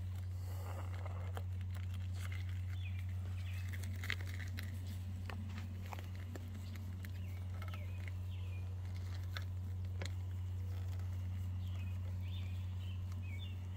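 A steady low hum throughout, with birds chirping in the background and a few light clicks and steps on grass.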